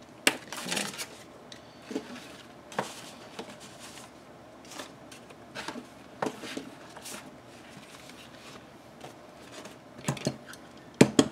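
Paper and small craft tools handled on a work surface: scattered light taps, clicks and paper rustles, with two sharp clicks close together near the end.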